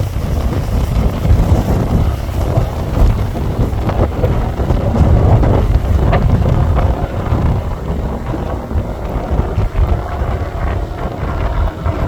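Wind buffeting the microphone aboard a boat: a loud, uneven low rumble.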